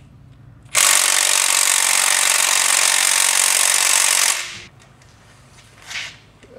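Cordless impact wrench hammering on a brake backing-plate bolt of a Dana 30 front axle for about three and a half seconds, then stopping abruptly; the bolt does not break loose, so a bigger impact is called for.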